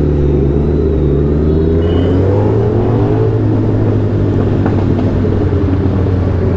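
Suzuki Hayabusa superbike's inline-four engine and exhaust running at low, fairly steady revs while riding slowly in traffic. The pitch lifts slightly and settles back around the middle.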